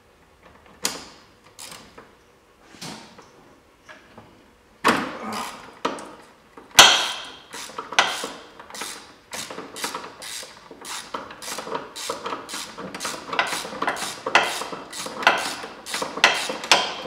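Hand ratchet working a nut through a socket on two long extensions and a swivel joint, clicking in quick, even strokes. A few scattered metal clicks come first, then steady ratcheting from about five seconds in, roughly three clicks a second.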